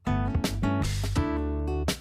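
Background music with guitar chords.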